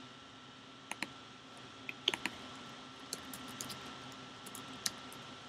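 Typing on a computer keyboard: sharp keystroke clicks in a few short runs, over a steady background hiss.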